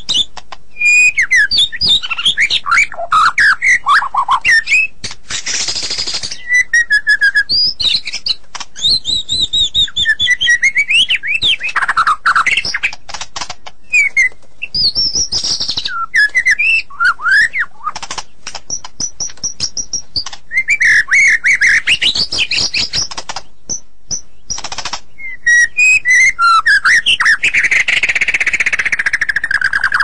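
White-rumped shama singing nonstop: a varied run of loud, clear whistled phrases that glide up and down, mixed with fast harsh chattering notes and only brief pauses.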